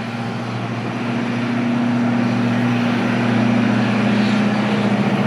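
Jet engines of an arriving Boeing 767-400 airliner passing on approach: a steady roar with a low drone, growing louder over the first few seconds and then holding.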